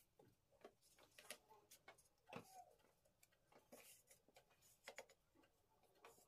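Faint, scattered rustles and soft crinkles of thin hand-rolled dough sheets being laid and scrunched into a round metal baking tray.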